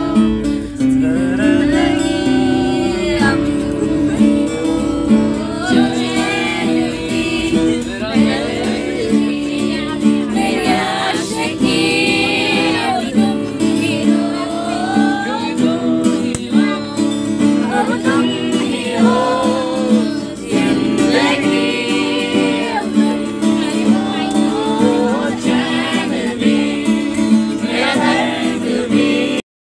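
A man singing to his own strummed acoustic guitar. It cuts off abruptly just before the end.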